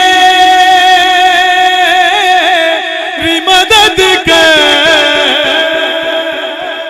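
A man singing a naat into a microphone, holding long notes with wavering ornaments, then fading toward the end.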